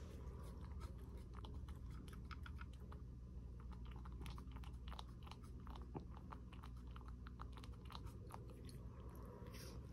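A domestic cat eating from a wooden dish: a fast, irregular run of small chewing and clicking sounds as it clears the last of its food.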